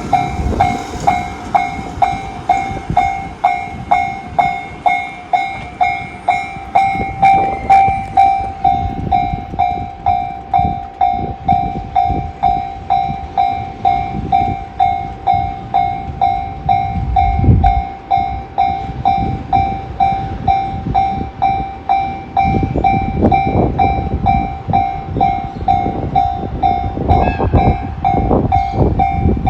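Japanese railway level-crossing alarm (JR standard electronic tone) ringing in an even repeating ding, about one and a half rings a second, while a freight train passes over the crossing with a low rumble and clattering wheel clicks.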